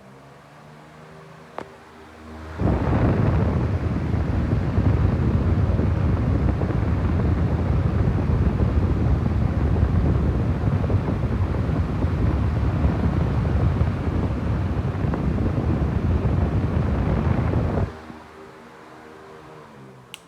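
Strong airflow from a 50 cm wall fan buffeting the microphone as loud wind rumble, which starts abruptly about two and a half seconds in and stops just as abruptly near the end. Before and after it the fan's motor gives a faint steady hum, with one click early on.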